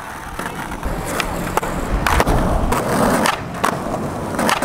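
Skateboard rolling over concrete, the wheels giving a steady rumble that builds after about a second, broken by a series of sharp clacks, with a quick run of them near the end.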